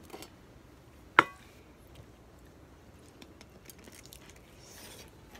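Faint sounds of grilled sausage being bitten and chewed, with one sharp click about a second in.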